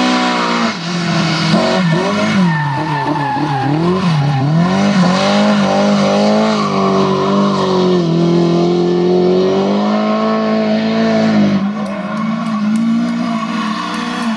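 Lada 2107 rally cars' four-cylinder engines driven flat out, the pitch climbing and dropping sharply as the drivers lift, brake and change gear through the corners, with some tyre squeal.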